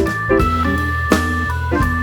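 Background music: an organ-led instrumental, jazzy in feel, with held chords and a short melody over a steady bass and light percussion.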